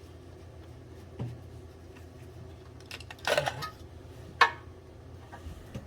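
Metal tools and burner parts clinking and clattering as they are handled, with a few sharp clicks and a louder knock of metal on metal, over a low steady hum.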